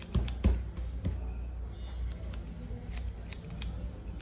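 Barber's steel hair scissors snipping hair over a comb: a string of quick, crisp snips at an uneven pace. A dull bump about half a second in is the loudest sound.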